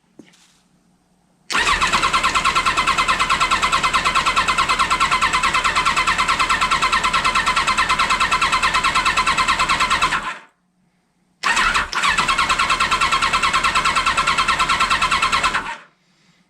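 Motorcycle engine cranked on its electric starter in two spells, about nine seconds then about four, a fast even pulsing with no firing: the spark plugs are disconnected so it turns over without starting, pumping fuel through to fill the fuel filter.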